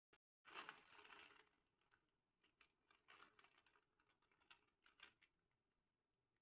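Faint crinkling and crackling of a plastic snack packet being handled: a short dense rustle about half a second in, then scattered light clicks and crackles.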